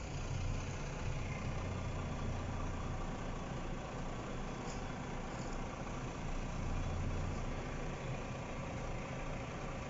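Iveco Hi-Way truck's diesel engine running steadily at low revs, heard from inside the cab as the truck reverses slowly.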